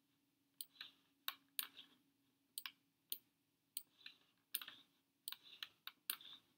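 Computer mouse clicks: about a dozen sharp, irregular clicks, some in quick pairs, as pieces are clicked and dragged on screen. A faint steady hum runs underneath.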